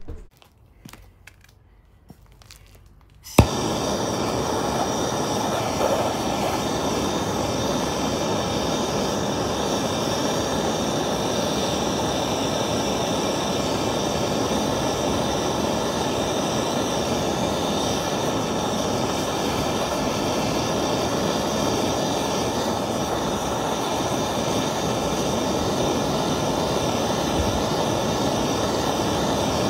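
A few light metal clicks as parts are handled, then a handheld gas blowtorch is lit with a sharp click about three seconds in and burns with a steady rushing hiss, heating the rusty suspension parts.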